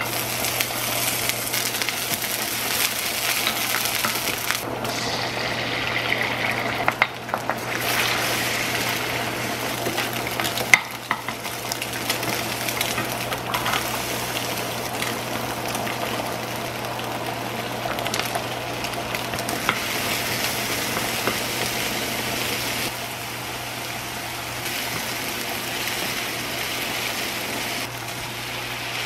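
Green onions sizzling in hot oil in a frying pan, the sizzle starting suddenly as they go in, then chopped vegetables and egg frying while a wooden spatula stirs and scrapes the pan, with a couple of sharp knocks.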